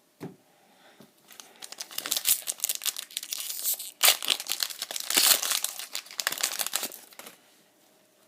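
Foil booster pack wrapper crinkling and tearing as a Pokémon card pack is ripped open, with a sharp loud rip about four seconds in.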